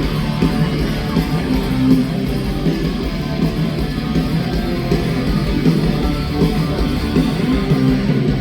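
Live rock band playing a song's instrumental opening: strummed electric guitars and bass guitar, loud and steady, before the vocals come in.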